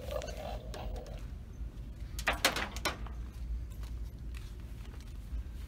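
Quiet shop background with a steady buzzing hum that stops about a second in, then a quick cluster of sharp clicks and knocks about two and a half seconds in.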